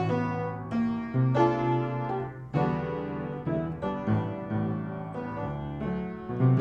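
Piano playing slow jazz-ballad chords and short melodic fills, a new chord or note struck about every half second to second.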